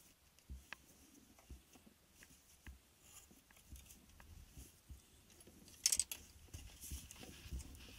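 Faint workshop handling noises: light scattered clicks and knocks as a steel rod and wooden jig pieces are picked up and moved about on a cluttered workbench, with a brief sharper clatter about six seconds in.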